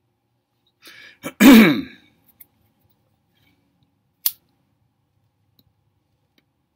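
A man gives one short throat-clearing cough that falls in pitch, then, about three seconds later, a lighter is struck with a single sharp click.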